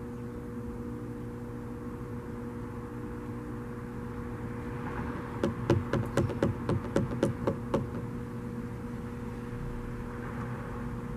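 A steady low hum, and about halfway through some two seconds of rapid, irregular sharp knocks or taps, about a dozen in all.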